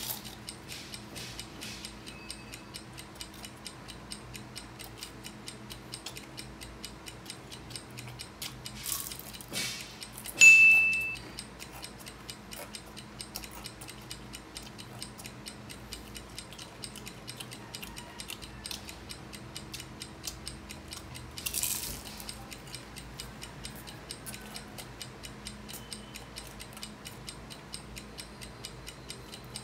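Steady, fast clock-ticking countdown sound effect, with a single bright chime about ten seconds in that quickly fades. Two short noisy bursts come at about nine and twenty-two seconds.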